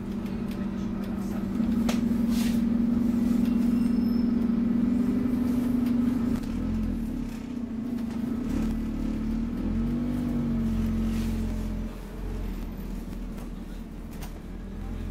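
Scania OmniCity N230UD double-decker bus's diesel engine and drivetrain running under the floor: a steady hum that pulls louder for a few seconds, then eases off, and drops again near the end, with a few knocks and rattles from the body.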